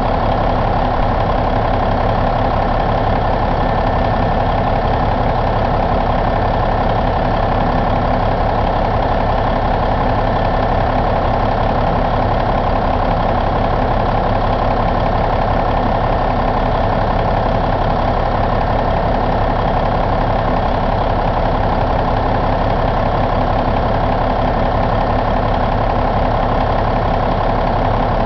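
Cummins N14 CELECT six-cylinder diesel engine idling at a steady speed, with no change in pitch or loudness.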